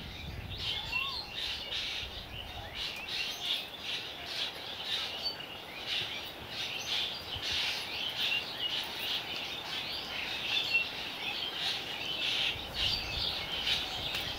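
Several birds chirping and calling at once, a steady chorus of short, high, overlapping chirps.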